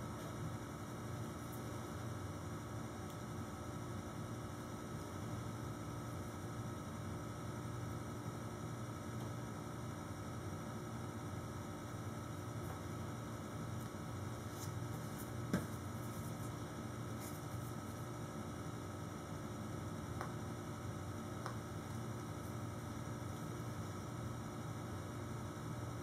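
Steady electrical hum over low room noise, with one faint click a little past halfway.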